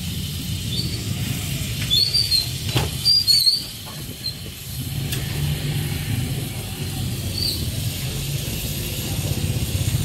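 Noodles frying in a steaming wok over a charcoal fire, hissing and sizzling, over a steady low rumble. A metal spatula scrapes and knocks against the wok several times between about two and three and a half seconds in, with short high squeaks.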